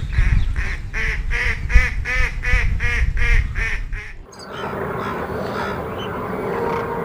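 A domestic fowl calling in a fast, even series of about three calls a second, over a low rumble. The calls stop abruptly about four seconds in, and a steady noisy background follows.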